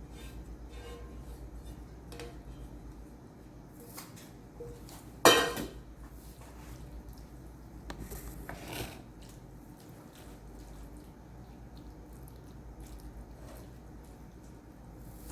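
Kitchen clatter of dishes and cookware: one loud sharp clank with a brief ring about five seconds in, a lighter clink near eight and a half seconds, and small knocks and clicks in between.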